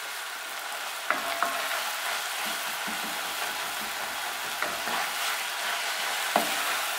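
Chopped bacon, onion and garlic sizzling steadily in an enamelled Dutch oven. From about a second in, a wooden spoon stirs and scrapes through the mixture, knocking sharply against the pot a few times.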